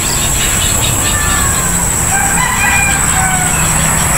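A rooster crowing once, one call of about two seconds, faint over a steady high-pitched insect chorus.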